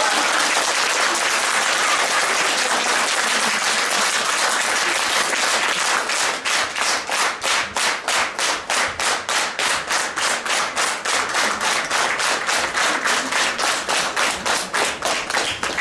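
Audience applauding, at first a dense ragged applause that about six seconds in falls into rhythmic clapping in unison, about three to four claps a second.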